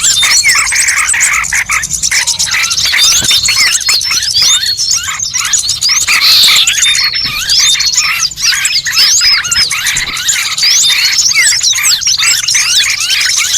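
A dense chorus of many small birds chirping and twittering at once, with rapid, overlapping short notes: a bird-lure (pikat) call recording played to draw birds in.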